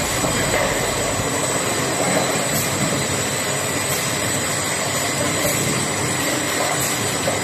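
Instant noodle bowl lid sealing machine running: a steady mechanical whir with a faint tick about every one and a half seconds.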